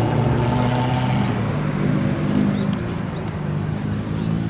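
A car engine running steadily.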